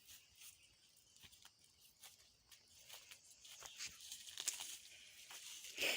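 Light crackling and rustling of footsteps and plants in dry vegetation, scattered at first and busier toward the end, with one louder crackle right at the end.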